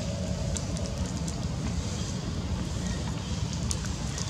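Wind rumbling on the microphone, with a few faint crinkles from a foil-and-plastic snack wrapper being chewed and handled by a young monkey.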